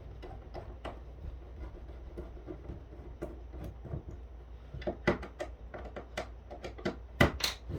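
A screwdriver backing a long, tight coarse-thread screw out of a plastic phone housing: faint scraping at first, then a run of sharp clicks and creaks from about five seconds in, loudest near the end.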